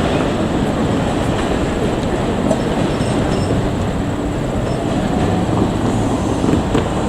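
JR Kyushu 787-series electric train running past close by: a loud, steady rush and rumble of wheels on rail.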